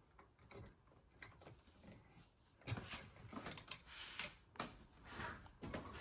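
Faint, scattered clicks and scrapes of a small Phillips screwdriver and screws being handled against a light switch's metal mounting strap, more frequent in the second half.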